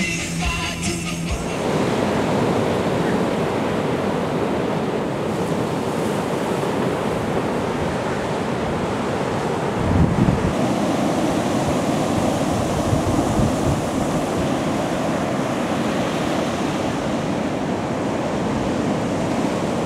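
Ocean surf: waves breaking and washing in as a steady rushing noise, with wind on the microphone. About halfway through there is a louder low rumble.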